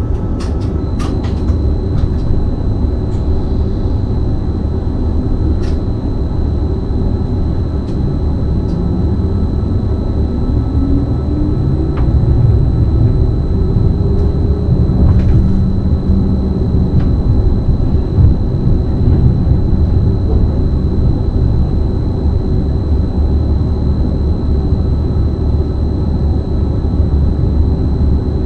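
BLS RABe 515 (Stadler KISS) electric multiple unit pulling away from a station stop and gathering speed: a steady low rumble with a motor whine that climbs in pitch for several seconds as it accelerates. A steady high whistle runs from about a second in, and a few sharp clicks are heard.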